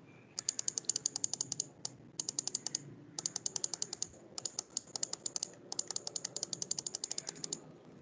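Computer mouse scroll wheel turned in quick runs of small ratchet-like clicks, about ten a second, in five bursts with short pauses between.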